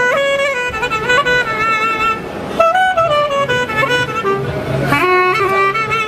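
Instrumental background music: a melodic lead moving from note to note over a pulsing bass line.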